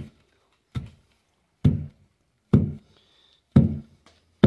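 Wooden pestle pounding roasted peanuts and corn flour in a pilão mortar: about five heavy, evenly spaced thuds, roughly one a second. The mixture is being pounded into a paste for paçoca.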